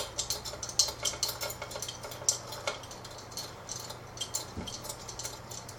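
Irregular clicking and clinking of metal tools and small steel engine parts being handled during the teardown of a small Briggs & Stratton engine.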